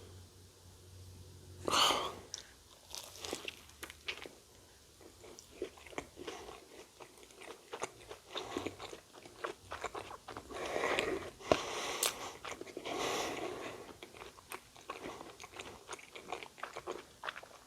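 Close-miked bite into a fried Korean corn dog coated with sweet potato, one crunch about two seconds in, followed by wet, irregular chewing with small crunches, louder in the middle.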